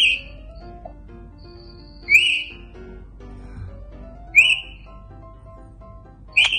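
Short, rising whistled calls, one about every two seconds, four in all, over faint background music.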